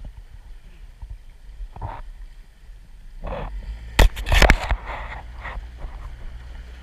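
Handling noise from a camera aboard a small boat: a sharp knock about four seconds in, then half a second of loud rustling, over a low steady rumble.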